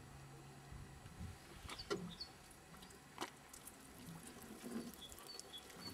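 Fuel trickling faintly through a hose from a raised jerry can into a car's fuel tank, with a few soft clicks.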